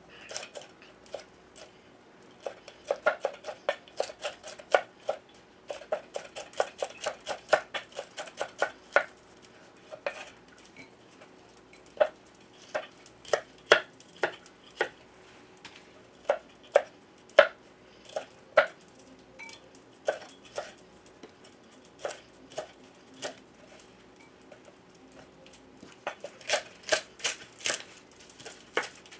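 A kitchen knife chopping on a cutting board: quick runs of several strokes a second, with single chops scattered in between.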